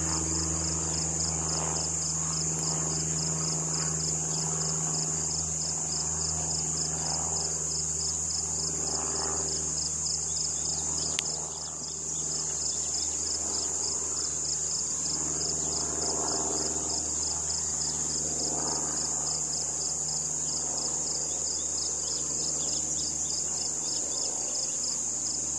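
Steady, high-pitched, rapidly pulsing trill of crickets or similar insects, over a faint low hum of honeybees around an opened hive.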